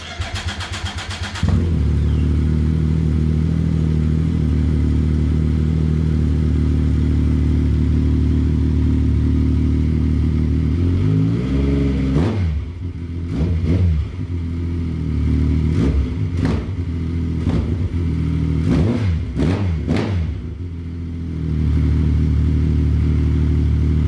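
Turbocharged 2016 Yamaha Viper MTX snowmobile with a Hindle exhaust starting up. The starter cranks briefly, the engine catches about a second and a half in and idles steadily. From about halfway it revs once, then takes a run of quick throttle blips before settling back to idle near the end.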